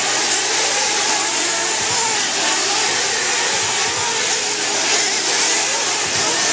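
Several 1/8-scale nitro RC buggy engines buzzing and revving together in a dense, steady din, their pitches wavering up and down as the throttles open and close.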